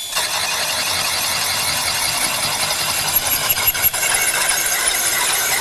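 Hole saw on a cordless drill in slow gear grinding into a wall tile, a steady noisy cutting sound that starts as the saw bites into the tile.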